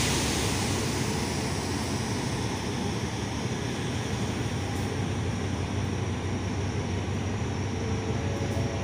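Diesel-electric locomotive D.4545 running steadily as it stands at the head of its train, a low even engine drone.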